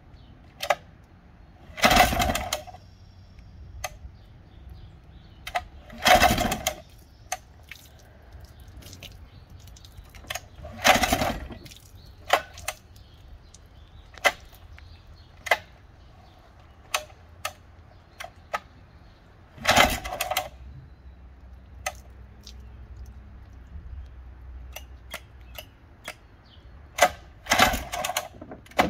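Old outboard motor being pull-started by its recoil starter rope, about five hard pulls several seconds apart, each a brief burst of the engine cranking over without catching, with small clicks and knocks between pulls. The choke is on, and these are the first cranks after the motor has sat unrun since 1996.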